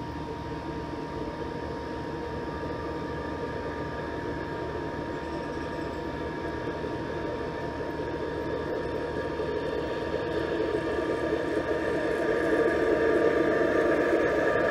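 G scale model freight train behind a Chessie System SD40-2 diesel locomotive, rolling on garden track with a rumble of wheels on rail and a steady motor whine. The sound grows steadily louder as the train draws near, loudest near the end.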